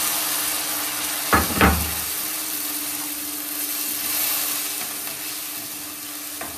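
Water hitting hot oil and browned onions in a steel kadai, sizzling and slowly easing off as it boils away. A spatula knocks twice against the pan about a second and a half in.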